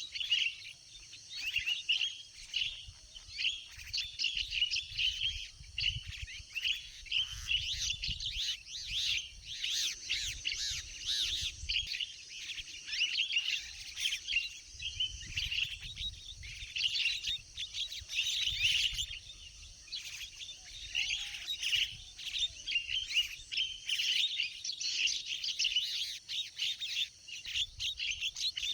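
Many birds chirping and chattering without pause, a dense overlapping chorus of short high calls, with a low rumble coming and going underneath.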